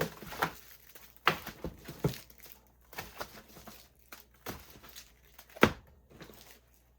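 Fireworks parcel being unpacked by hand: a string of irregular knocks and packaging handling noises, the loudest knock a little past five seconds in.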